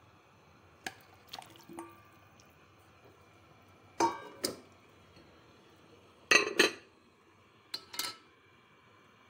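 Kitchen handling sounds at a pot of water: a few light clicks, then three louder clusters of knocks, clinks and water splashes, the loudest a little past halfway, as soup ingredients are put into the pot.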